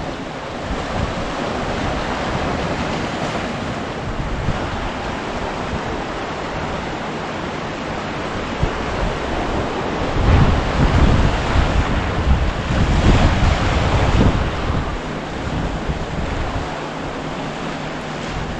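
Wind blowing across the microphone as a steady noise, with heavier gusts buffeting it from about ten seconds in.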